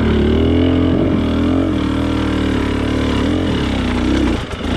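Off-road motorcycle engine running hard under load on a steep, slippery climb, its pitch rising and falling as the throttle is worked, then dropping away sharply near the end.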